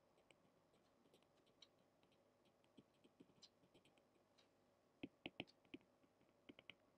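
Faint taps and light scratches of a stylus writing on a tablet screen, with a few sharper clicks about five seconds in and again near the end.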